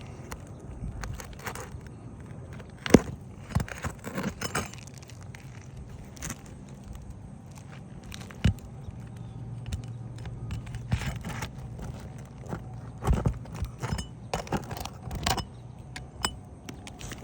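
Irregular clicks, taps and light knocks of hand roofing work: tools and asphalt shingles being handled, with one sharp click about three seconds in.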